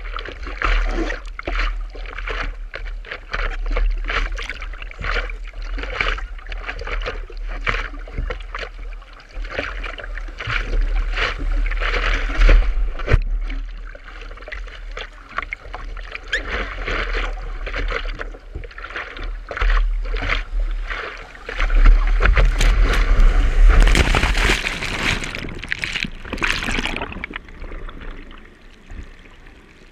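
Seawater splashing and sloshing around a surfboard as it is paddled by hand through the surf, with repeated strokes and splashes. A louder rush of water comes about three quarters of the way through, then the sound turns muffled as the board's nose goes underwater near the end.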